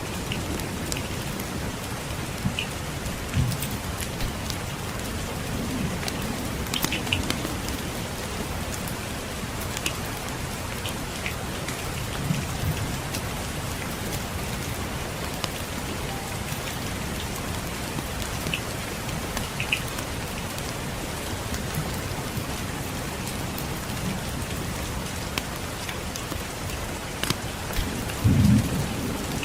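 Steady rain with scattered crackles and pops of a wood fire in a fireplace. A short low thump stands out near the end.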